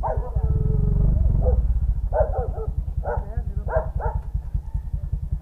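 Suzuki Raider J 115 Fi's single-cylinder four-stroke engine idling steadily, while a dog barks several times in short separate barks.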